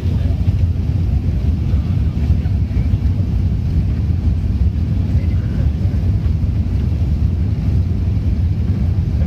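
Steady, low cabin drone of an Airbus A380-800 climbing out: its four Engine Alliance GP7270 turbofans and the airflow, heard from a window seat by the wing.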